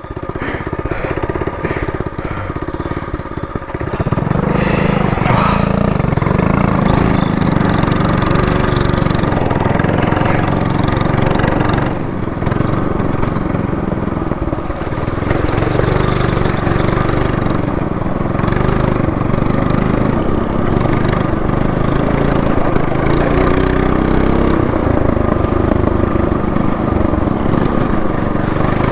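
Small single-cylinder four-stroke engine of a Trailmaster MB200 minibike running, lower for the first few seconds and then louder and steady. Its speed rises and falls briefly about two-thirds of the way through.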